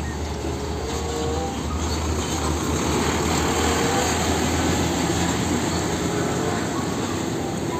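Semi-truck hauling a shipping container driving past: diesel engine running and tyre noise on the road, growing louder toward the middle as it passes close, then easing slightly.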